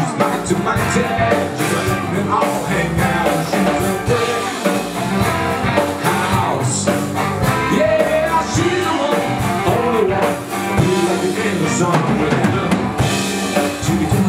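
Live band playing a rock-and-roll number: drum kit, electric guitar and a singing voice.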